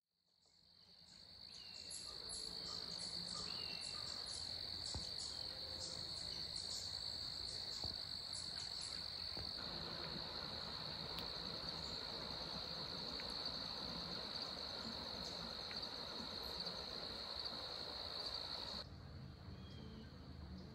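Crickets singing in a steady, unbroken high-pitched chorus, fading in over the first couple of seconds. Faint higher chirps come in during the first half. The chorus cuts off abruptly near the end, leaving a faint low hum.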